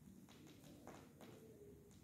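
Faint surface noise of a vinyl LP playing in an unrecorded stretch of groove: a low hiss with a few scattered soft clicks and crackles.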